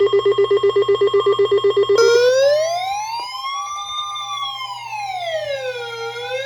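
Electronic siren alert tone: a rapid pulsing tone, about eight or nine beats a second, switches about two seconds in to a slow wail that rises and falls about once every four seconds, over a steady low hum. It is the attention signal that opens an emergency alert broadcast.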